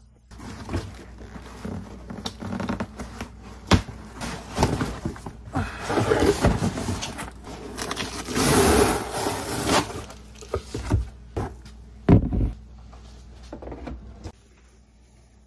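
Cardboard boxes and supplies being handled and packed: irregular scraping and rustling with a few sharp knocks, the loudest about twelve seconds in. It dies away shortly before the end.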